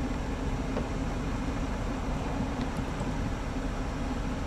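Steady low rumbling background noise with a light hiss and no distinct events.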